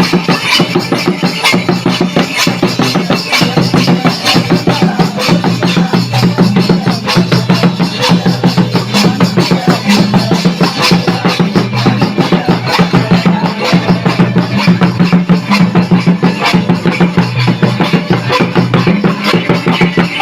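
Santali song music with a fast, steady drum beat over a repeating bass line.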